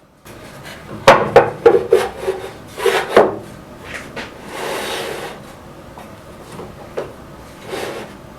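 Wooden spline-cutting jig knocking and scraping against the table saw fence as it is fitted and pushed along it; wood rubs on wood because the jig's fit over the fence is tight. A quick run of sharp knocks comes in the first few seconds, then slower rubbing strokes.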